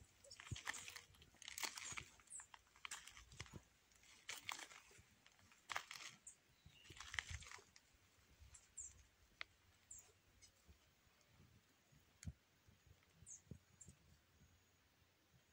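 Faint, intermittent rustling and crunching of dry grass and brush, in short bursts through the first half, then a few brief, high chirps.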